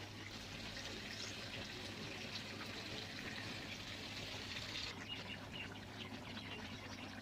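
Water going into a pan of frying chicken, making a steady hiss of sizzling liquid that eases off about five seconds in.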